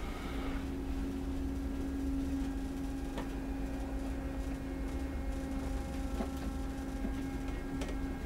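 Steady low rumble and constant hum of a cruise ship's machinery heard inside a lower-deck cabin, with a few faint clicks.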